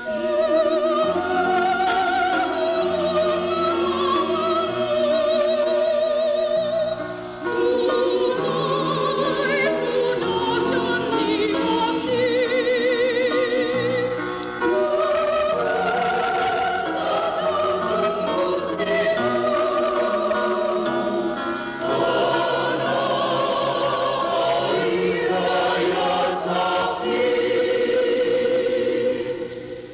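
A choir singing a slow song in long held notes with a wavering vibrato, phrase after phrase with short breaks between.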